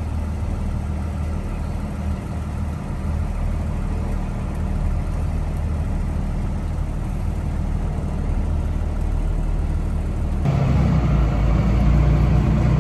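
Box truck's engine running steadily at low speed, heard from inside the cab as a low hum; it grows a little louder about ten seconds in.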